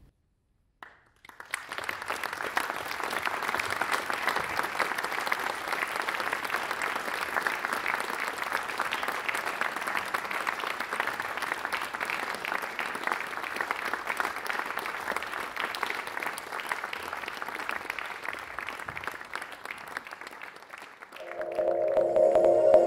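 Audience applauding, starting about a second and a half in after a moment of silence and thinning slightly later on. Near the end, ambient electronic music with steady held tones comes in louder.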